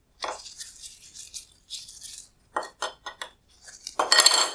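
Handling noise of a small LED circuit board being held and turned over by gloved fingers on a wooden workbench: rustling and scraping with a few light clicks midway, loudest as the board is flipped about four seconds in.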